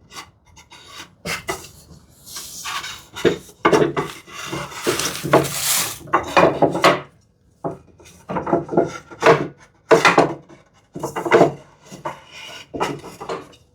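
Wood rubbing and scraping against wood in a series of irregular strokes with a few light knocks, as a wooden piece is slid back and forth in its groove to check the fit.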